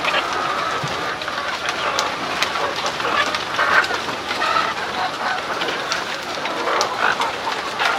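A house of caged laying hens clucking and calling, many birds at once, with scattered sharp clicks and rattles through it.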